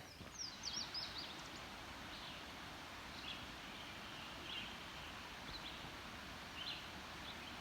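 Quiet woodland ambience with birds chirping: a quick run of short descending chirps near the start, then single short high calls every second or so over a steady low background hiss.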